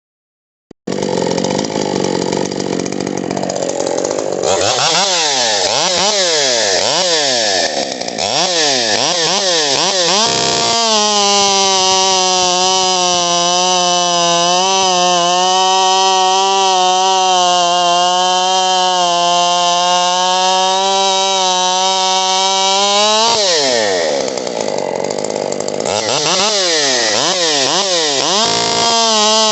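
Husqvarna 545 two-stroke chainsaw, a first-generation saw rebuilt with a Mark II cylinder, piston and crank, running. It starts at a low, unsteady speed and is then revved up and down several times. From about ten seconds in it is held at high revs for about twelve seconds, then drops back, is revved up and down again, and climbs back to high revs near the end.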